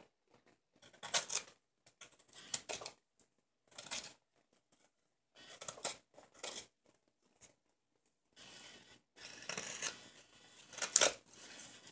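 Sloyd knife slicing shavings off a green silver birch ladle blank: about eight separate scraping cuts, the loudest near the end.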